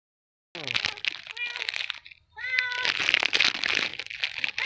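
A domestic cat meowing three times, the last call the longest, over steady crinkling and rustling noise.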